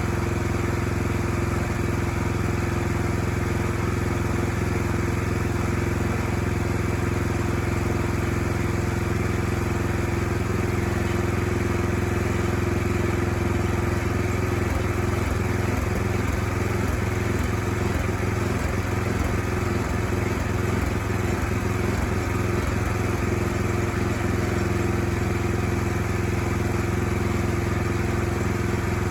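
A portable sawmill's gasoline engine running steadily, with a constant hum.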